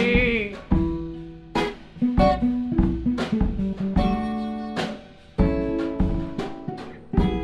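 Acoustic guitar strumming chords in a live band jam, with drums; each chord is struck sharply and rings on for a moment.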